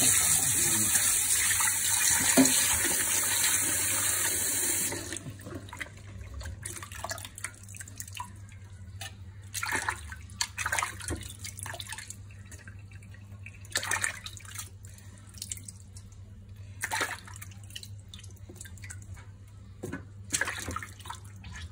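Kitchen tap running into a steel bowl in the sink, then shutting off about five seconds in. After that come scattered soft splashes and sloshing as a hand swishes fish pieces through the water in the bowl.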